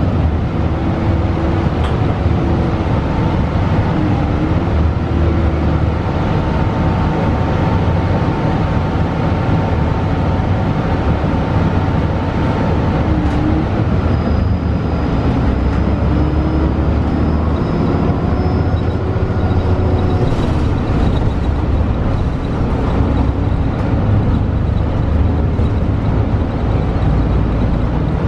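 Cabin sound of a 2012 Gillig hybrid transit bus under way: its Cummins ISL9 diesel and Voith DIWAhybrid drivetrain running over a steady low road rumble. Faint whines drift up and down in pitch.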